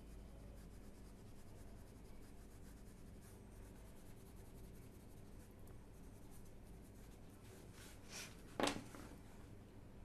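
White oil pastel rubbing over drawing paper in faint repeated strokes, covering and blending the coloured areas with white. A brief louder scrape or rustle comes near the end.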